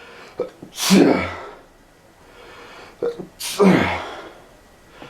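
A person sneezing twice, about two and a half seconds apart. Each sneeze opens with a short sharp intake of breath, then a loud burst whose voice drops in pitch as it fades.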